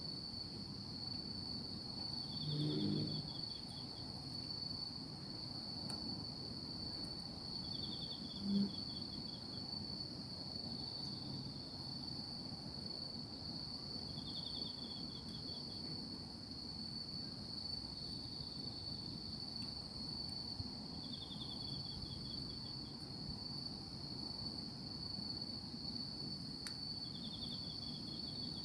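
Insects calling at night: one keeps up a steady high continuous trill while another gives a short pulsed chirp about every six seconds. A brief low thump sounds about eight seconds in.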